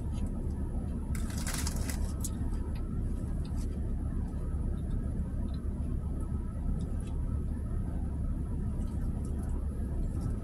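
Steady low rumble of a car running while parked, heard from inside the cabin. About a second in there is a short burst of crisp crunching from salad being chewed, with a few light clicks of a plastic fork against the plastic container later on.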